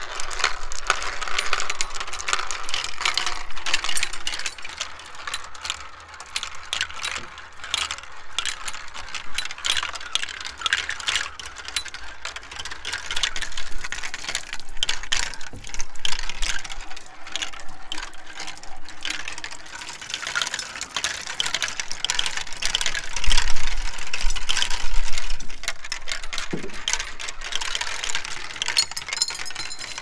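Glass marbles rolling and clicking through a plastic Galt marble-run track, with water splashing and trickling down the pieces alongside them. There are many small, irregular clacks throughout. A gust of wind rumbles on the microphone about two-thirds of the way through.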